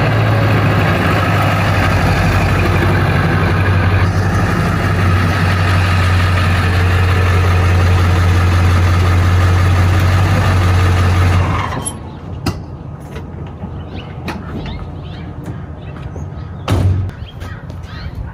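Ford F-350's 7.3-litre Power Stroke turbo-diesel V8 running steadily as the truck drives in, then shutting off about twelve seconds in. A few sharp knocks follow, the loudest near the end.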